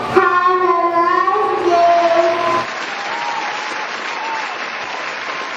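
A young child singing into a microphone, with held, pitched notes; the singing cuts off abruptly about two and a half seconds in. Steady audience applause follows.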